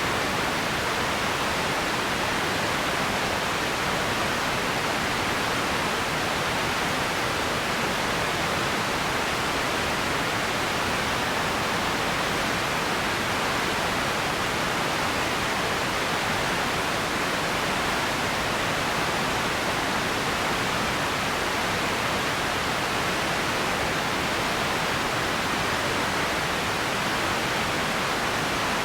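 Empty ambience noise: a steady, unchanging hiss, strongest in the middle range, with no distinct events.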